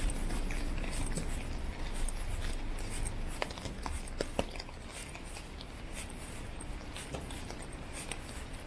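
Street ambience on a wet walk: footsteps on wet pavement over a steady low rumble of city traffic, with a few short high chirps about three and a half to four and a half seconds in.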